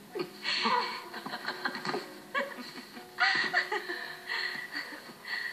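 A young man and woman laughing and giggling together in short bursts, over faint soft music, played through a television speaker.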